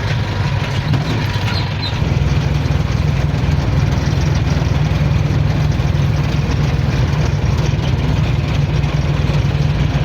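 Engine and road noise of a moving vehicle heard from inside, a steady low rumble that gets a little louder about two seconds in.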